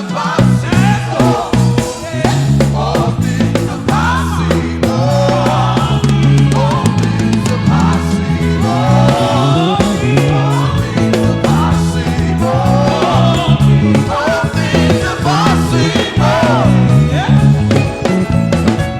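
Live contemporary gospel praise music: a group of singers over a band with a steady bass line and drums.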